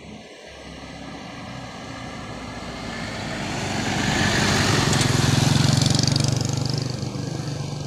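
A small box truck drives up and passes close by. Its engine and tyres grow louder to a peak about five seconds in, then fall away.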